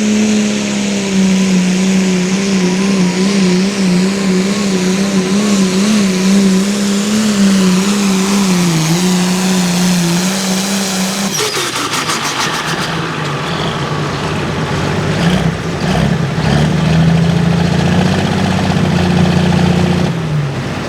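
Hot farm pulling tractor's engine at full throttle hauling the sled, its pitch wavering and sagging under load. About halfway through the note drops abruptly with a burst of crackling, then the engine runs at a lower, steadier pitch until just before the end.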